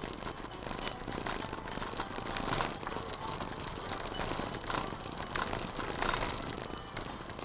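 Car driving on a loose gravel and dirt road, heard from inside the cabin: a steady crackle of gravel under the tyres, with stones clicking and the car body rattling.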